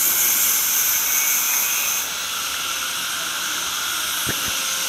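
A steady high-pitched hiss, with one short click about four and a half seconds in.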